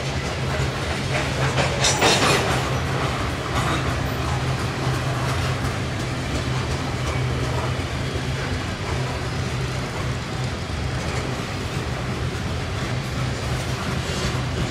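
Norfolk Southern manifest freight train's cars rolling past, a continuous clatter of wheels over the rails with a steady low rumble. A brief louder burst of rattling comes about two seconds in.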